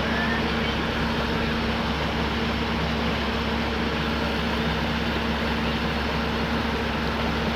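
Komatsu excavator's diesel engine running steadily under work, a constant even drone.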